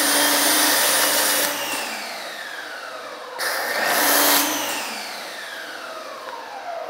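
Active 2.0 electric pressure washer spraying through an MJJC foam cannon in two bursts, at the start and about three and a half seconds in, with a steady motor hum while the trigger is held. After each burst the motor's whine falls in pitch as it spins down.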